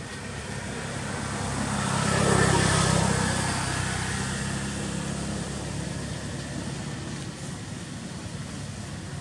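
A motor vehicle's engine passing by, growing louder to a peak about two and a half seconds in and then slowly fading.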